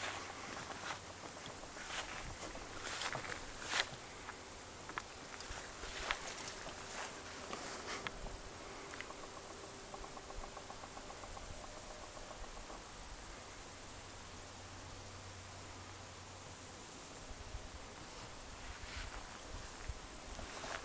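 A steady, high-pitched chorus of insects stridulating in the meadow grass, breaking off briefly twice. Scattered short clicks and rustles come in the first several seconds and again near the end.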